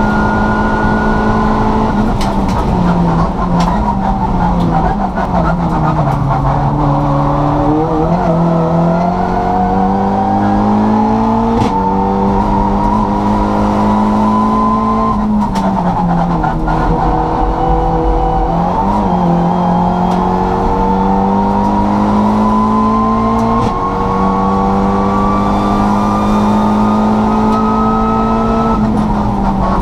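Turbocharged Volkswagen Polo race car engine at racing speed, heard from inside the stripped cabin. Its note climbs steadily along the straights and drops several times under braking for corners.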